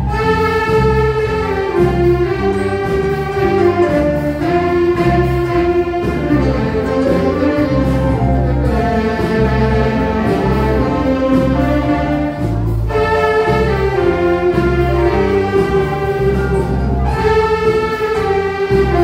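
Instrumental music: a sustained lead melody over a steady bass beat, with short pauses between phrases.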